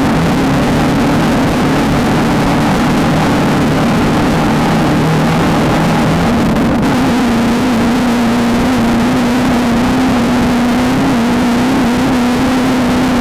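Off-road race car's engine running hard at steady revs, with road and wind noise; about six seconds in its pitch drops slightly and then holds.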